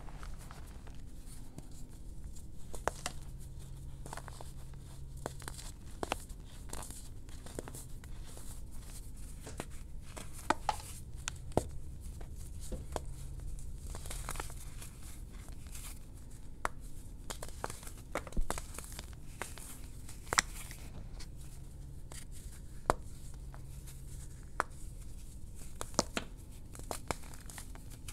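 Hands crushing and crumbling chunks of gym chalk in a bowl of chalk powder: a soft rustle of powder with many scattered sharp crackles and snaps as the chunks break apart.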